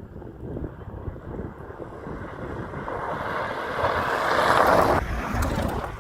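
Skoda Yeti driving off-road, a low rumble with wind buffeting the microphone. A loud rushing hiss builds from about three seconds in and cuts off suddenly about five seconds in.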